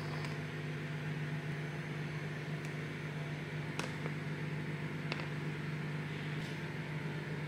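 Microwave oven running with a steady hum, and two or three light clicks of plastic meal-prep containers being handled about halfway through.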